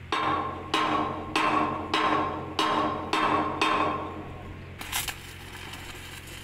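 A hammer striking steel seven times in a steady rhythm, about one blow every half second, each blow ringing on. Near the end a quieter crackle follows, the sound of a stick-welding arc.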